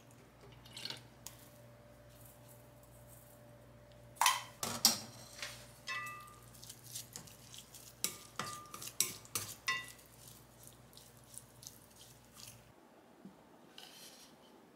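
Dishes and cutlery clinking and knocking, a busy run of sharp clinks, some ringing briefly. A low steady hum underneath stops near the end.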